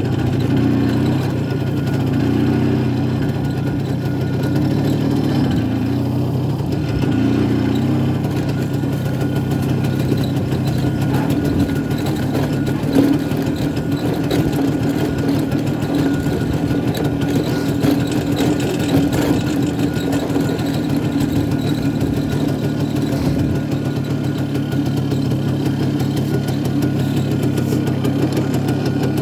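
1967 Pannonia P10's 250 cc single-cylinder two-stroke engine running under way. Its pitch wavers over the first several seconds, then holds steady.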